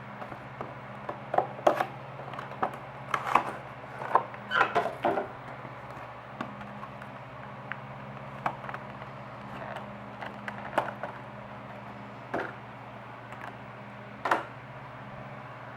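Scattered clicks, knocks and light crackles of a model's box and plastic packaging being handled as the model is taken out, busiest in the first five seconds and then occasional.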